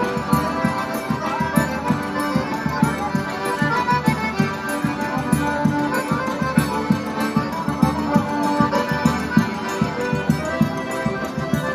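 Accordion ensemble playing a lively traditional Northeast Brazilian tune with a steady beat.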